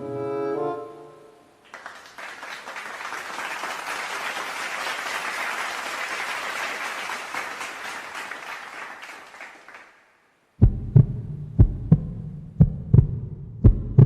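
A string of sound-effect clips: a pitched musical note dies away in the first second or so, then about eight seconds of an even noisy hiss like applause. After a brief silence, loud low thumps begin, coming in pairs about once a second like a heartbeat sound effect.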